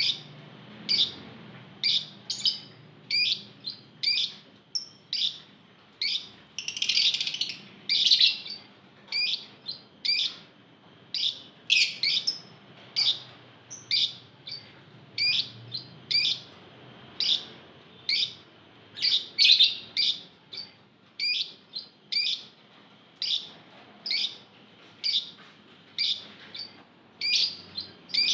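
A group of Fischer's lovebirds calling: short, sharp, high-pitched chirps repeating about one and a half times a second, with a denser burst of chattering calls about seven seconds in.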